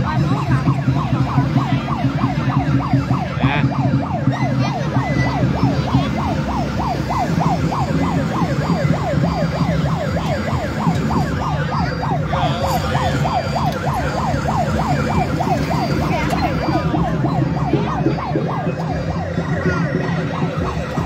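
A siren-like wailing tone that sweeps up and down quickly, about three times a second, over a steady low hum.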